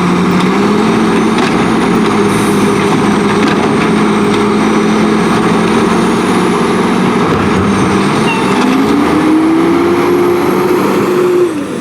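Diesel engine of an Autocar WX garbage truck running loud and steady, then revving up about three-quarters of the way through, holding the higher revs, and dropping off sharply near the end.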